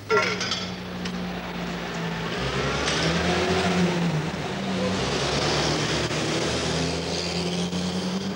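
Motor vehicle engine running, a steady low hum that wavers slightly in pitch, with road and air noise over it; it comes in abruptly right at the start.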